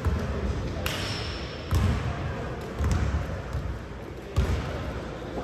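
A basketball bouncing on a gym floor in a few irregular heavy thuds, with a short sneaker squeak about a second in, over the murmur of a game in a large hall.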